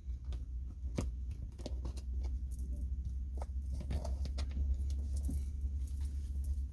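Tarot cards being handled and shuffled: irregular light clicks and snaps of card stock, over a steady low hum.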